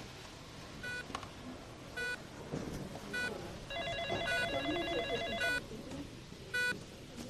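Hospital ambience: a patient monitor giving short beeps about once a second, and a telephone ringing with a trilling tone for about two seconds midway, over faint voices in the background.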